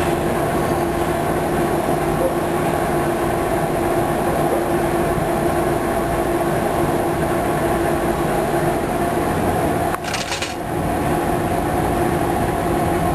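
Steady mechanical drone with a constant hum, broken by a short hiss about ten seconds in.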